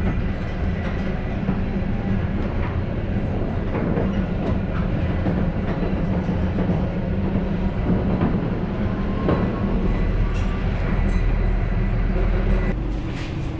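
Steady running noise heard from inside a Konstal 805Nm tram under way: a low hum from the motors and wheels on the rails, with scattered clicks and rattles. Near the end the noise drops a little and changes character.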